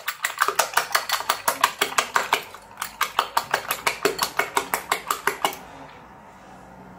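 Wire whisk clinking rapidly against a ceramic bowl of beaten eggs, about six strokes a second. The clinking stops about five and a half seconds in.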